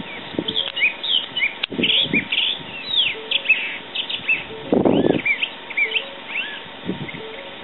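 Small songbirds chirping: many quick, high, arched notes overlapping in rapid succession, thinning out in the second half, with a brief low rumble about five seconds in.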